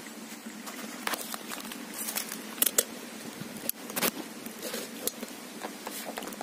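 Footsteps crunching on dry fallen palm fronds and leaf litter: irregular crackles and snaps over a steady background hiss.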